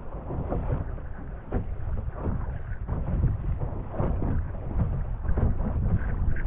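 Wind buffeting the microphone over a steady rush of water, with repeated splashes and slaps of waves against a small sailboat's hull as it moves through choppy water.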